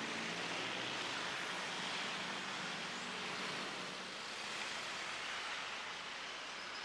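Steady hiss of distant road traffic, even throughout with no distinct events.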